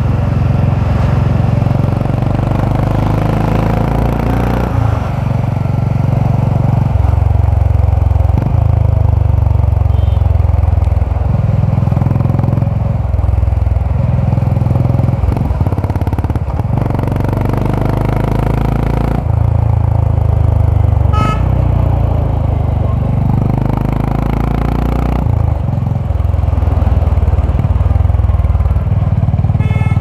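Honda H'ness CB350 single-cylinder engine and exhaust on the move. The engine note pulls, eases off and steps up and down several times, with brief dips between.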